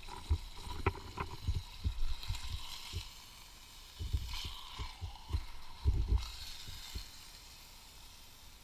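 Steak frying in a hot pan, a steady sizzle, broken by many irregular low thumps and rumbles.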